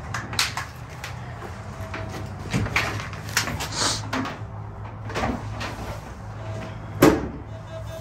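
Scattered knocks and clunks of a person moving about and handling things, over a steady low hum. One sharp knock about seven seconds in is the loudest.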